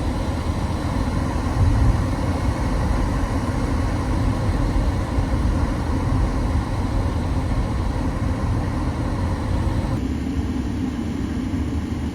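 Steady running noise of a car with its engine on and the air conditioning blowing.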